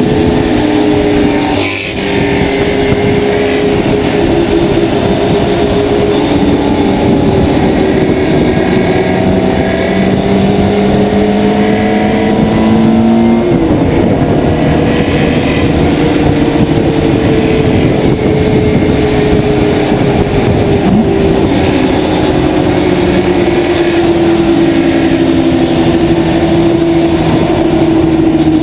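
Steyr Puch's air-cooled flat-twin engine pulling hard, heard onboard over steady wind and road noise. The engine note breaks for a gear change about two seconds in and again about halfway through, then sinks slowly toward the end.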